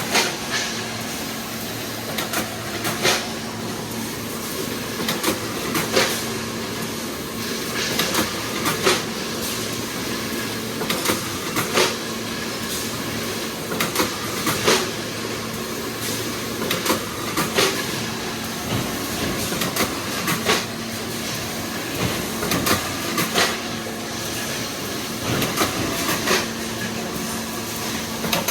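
Automatic can body welding machine running: a steady mechanical clatter with a low hum that comes and goes, and a sharp clack repeating about every three seconds.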